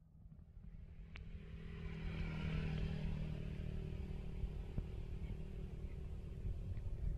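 A motor vehicle engine running in the background, growing louder over the first couple of seconds and then holding steady.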